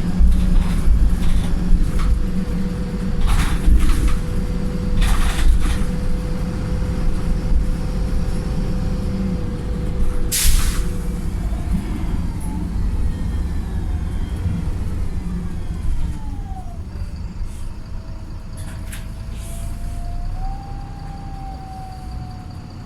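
Inside a Wright Pulsar single-deck bus: the tired diesel engine runs with a steady rumble, thrash and a whine. About ten seconds in comes a short, sharp hiss of air from the air brake system, the 'sneeze'. Later a whine falls in pitch and the running quietens toward the end.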